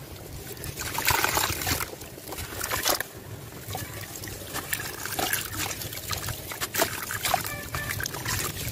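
A soaked sand chunk crunching and crumbling in the hands, with water trickling and wet, gritty crumbs splashing into a tub of water. Irregular crackles, loudest about a second in and again near three seconds.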